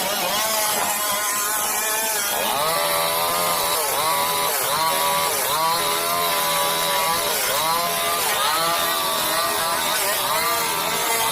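Chainsaw running at high revs while cutting through the trunk of a fallen tree, its engine pitch dipping under load and recovering about once a second.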